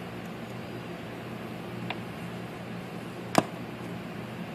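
Steady low hum with a faint click just under two seconds in and a single sharp click about three and a half seconds in, from hands working wool knots into the end of a rug during hand repair.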